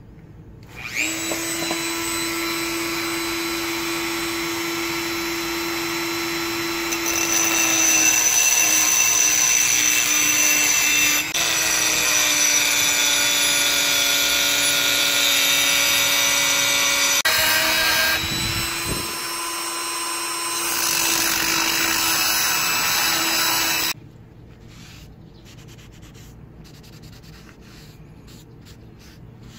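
Handheld rotary tool with an abrasive bit grinding grooves into a steel axe head cut from a circular saw blade, a steady high-pitched whine. It gets louder under load for about ten seconds, eases briefly, then stops suddenly.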